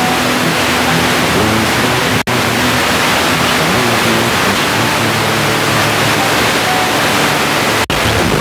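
FM radio static: a loud, even hiss from a phone's FM receiver tuned between stations, with faint tones showing through it. It cuts out for an instant twice as the tuner steps up the dial.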